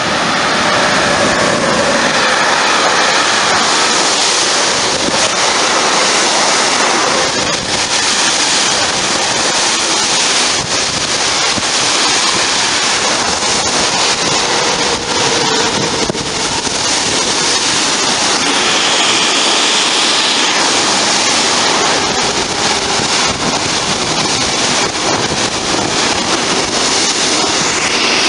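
Freight train hauled by an electric locomotive passing close at speed: a loud, steady rush of wheels on rail and wagons going by, with a few knocks along the way.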